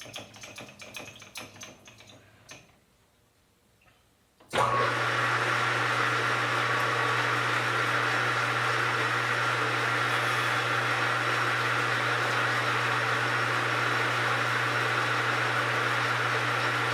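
A few light clicks and knocks, then a metal lathe starts up suddenly about four and a half seconds in and runs steadily with a low hum and a high whine, its motor and spindle turning for a cleanup cut in the bore of a steel plate.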